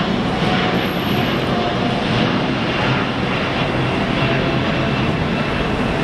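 Boeing 787's twin Rolls-Royce Trent 1000 turbofans at takeoff-climb power as the airliner climbs out: a steady rush of jet engine noise with a faint high whine.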